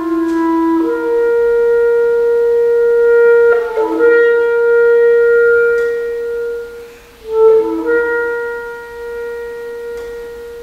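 Solo clarinet playing long sustained notes: a lower note gives way about a second in to a high held tone lasting several seconds, then after a brief dip a sharp accented attack and short lower note lead into another long held tone that fades near the end.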